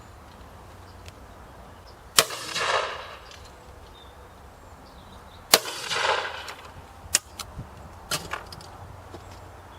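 Benelli 828U over-and-under shotgun fired twice, about three and a half seconds apart, each shot followed by a short rolling echo. A few lighter clicks and knocks follow.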